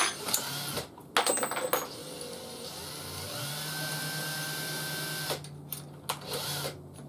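Cordless drill with a 16 mm bit fitted: a few clicks and rattles, then the drill motor spins up and runs with no load for about three seconds before stopping, followed by a few more clicks.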